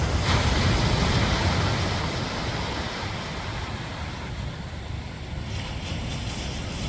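Ocean surf: a wave breaking and washing up the beach, loudest in the first couple of seconds and then easing off. A low rumble of wind buffets the microphone underneath.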